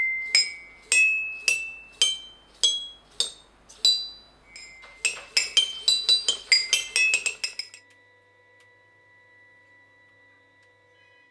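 Toy eight-bar xylophone struck one note at a time by a robot arm's ball-headed mallet: first a slow scale climbing up all eight bars, then after a pause a quicker run of notes. The notes stop about 7.5 seconds in, leaving only a faint steady hum.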